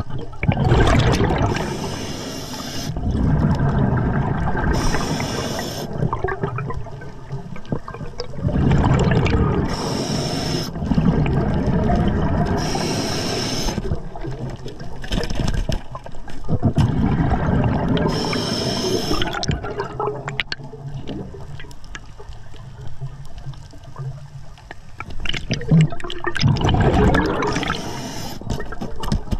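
Scuba diver breathing underwater through a regulator: short hissing inhalations alternating with longer low rushes of exhaled bubbles, about five breaths in all.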